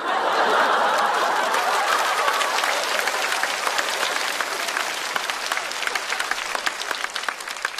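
Studio audience applauding a comedian's punchline, a dense patter of many hands clapping with crowd noise, loudest at the start and slowly dying down.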